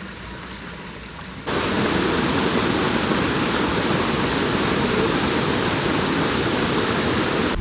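Rushing water: a steady, even noise of flowing water, quieter at first, then cutting abruptly about one and a half seconds in to a much louder, unbroken rush.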